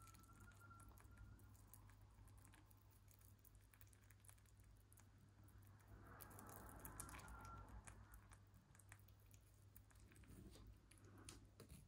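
A mini lop rabbit chewing and licking soft banana: faint, quick wet clicks and smacks, a little louder about six seconds in.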